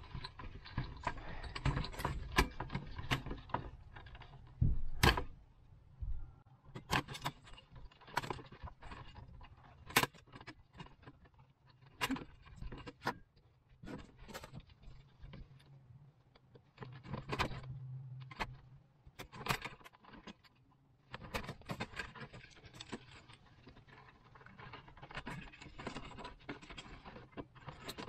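Hands working on light-fixture wiring: irregular sharp clicks and taps with light metallic jingling as wires and small metal parts are handled.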